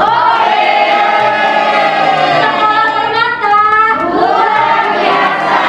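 Several voices singing together in long, held notes.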